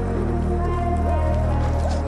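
Background music: held bass notes under a wavering lead melody.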